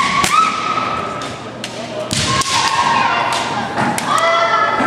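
Kendo bout: several sharp cracks of bamboo shinai strikes, mixed with long, drawn-out kiai shouts from the fighters.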